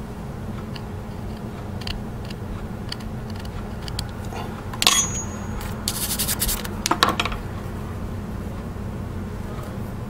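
Toothbrush bristles scrubbing over a carved jewelry wax model to clear away shavings, with a few sharp clicks and light scrapes of a carving tool, over a steady low hum.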